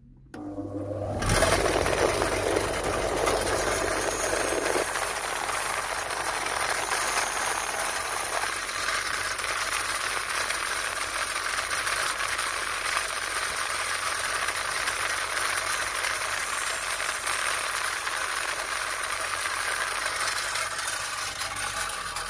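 Power wire wheel spinning up about a second in and then brushing rust off a pitted motorcycle horn: a steady, loud abrasive hiss with a low motor hum beneath it.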